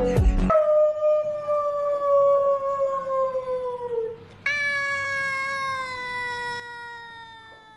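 A domestic cat giving two long, drawn-out meows, each lasting about three seconds and slowly falling in pitch; the second fades away near the end.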